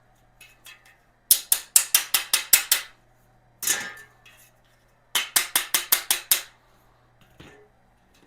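Small hammer tapping a rubber foot pad onto the end of a metal shelf upright to seat it fully: two quick runs of eight or nine sharp taps, about six a second, with a single knock between them.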